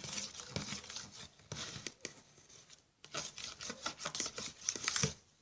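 Stirring a thick mixture of shampoo and body wash in a bowl: irregular scraping and rubbing strokes, with a short pause about halfway through.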